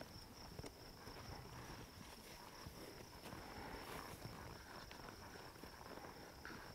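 Near silence in a dry outdoor pen: a faint, steady high insect trill, like crickets, with a few soft hoof steps on dirt.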